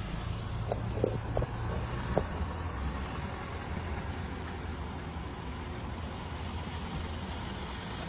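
Steady low rumble of a car heard from inside the cabin, with a few short squeaks in the first couple of seconds.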